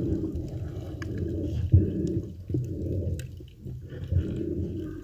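Muffled underwater water noise picked up by a submerged camera while the swimmer moves, a low churning that swells and fades, loudest nearly two seconds in, with a few faint sharp clicks.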